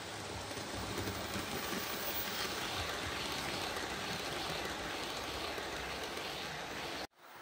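OO gauge model steam locomotive and Pullman coaches running past on the track: a steady running noise of wheels and motor on the rails, a little louder from about a second in as the train passes close, cut off abruptly near the end.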